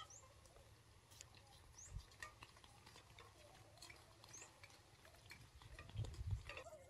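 Quiet outdoor ambience with faint, quick high bird chirps and scattered small ticks, and a few low thumps about six seconds in.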